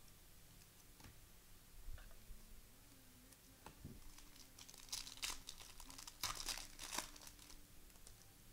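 Faint crinkling and tearing of a trading-card pack's wrapper being ripped open, with a cluster of crackles about five to seven seconds in and a few light clicks before it.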